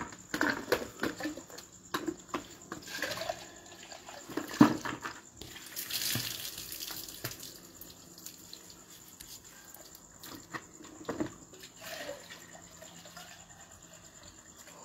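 Water being scooped from a plastic bucket with a steel mug and poured over a person, splashing onto the ground, with knocks of the mug against the bucket. The longest pour is about six seconds in.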